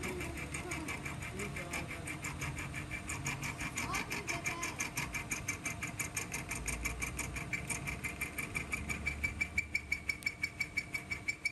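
Metal lathe turning a truck rear axle shaft while the cutting tool machines it: a steady high-pitched whine with a rapid, even ticking, about five a second, that grows louder toward the end.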